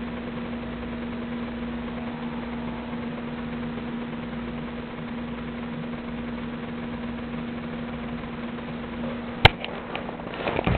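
A steady machine hum of one unchanging pitch. About nine and a half seconds in there is a single sharp click, then a few scattered knocks and handling noises near the end.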